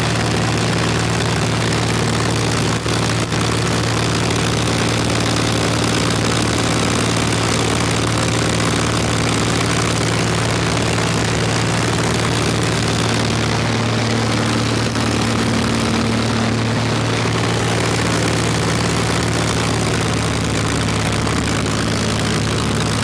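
A 1961 Cessna L-19E Bird Dog's six-cylinder Continental O-470 engine and propeller running steadily, a constant loud drone with an even rush of air over it.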